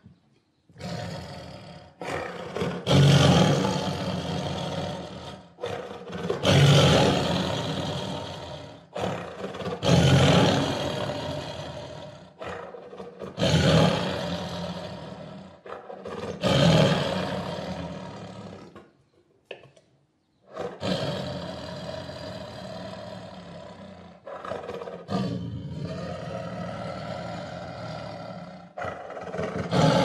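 Tiger roaring: a series of about five loud roars some three to four seconds apart, each strongest at the start and fading away. After a short pause, softer, steadier calls follow in the last third.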